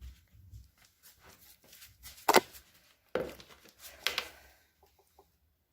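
Handling noise from a pack of wet wipes being fetched and opened: scattered rustling, a sharp plastic crackle a little over two seconds in and another burst about a second later, then it goes still.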